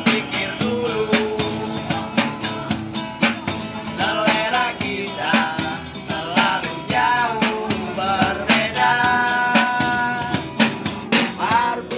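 A street busker singing in an unusual voice over guitar and percussion, holding one long note about three quarters of the way through.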